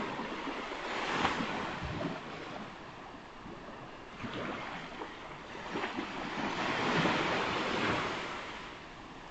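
Ocean surf breaking and washing up a beach. It swells briefly about a second in and again in a longer rush in the second half.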